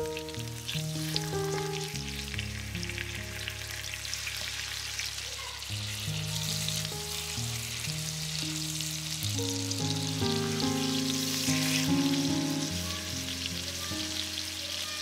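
Seasoned chicken breasts frying in butter and olive oil in a pan: a steady crackling sizzle. Background music with a slow melody plays underneath.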